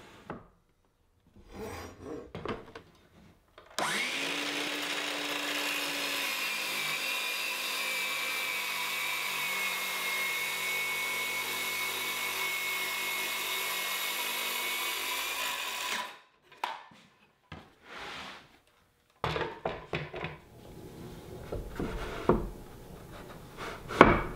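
DeWalt circular saw starting up about four seconds in and cutting through a plywood sheet for about twelve seconds, with a steady high whine over the cutting noise, then stopping. Light knocks and scrapes of handling the boards come before and after the cut.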